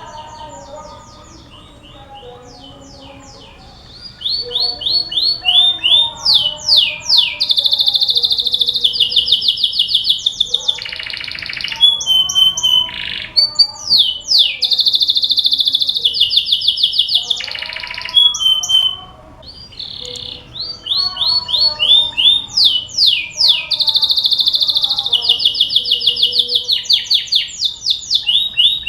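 Domestic canary singing a long, fast song of rapidly repeated notes and trills, the kind of canary lure song (pancingan) played to get other canaries to sing. It is faint at first, comes in loudly about four seconds in, breaks off briefly about two-thirds through, then resumes.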